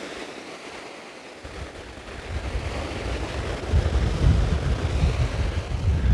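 Sea waves breaking and washing up a sand beach, with wind buffeting the microphone in a low rumble that builds and gets louder about halfway through.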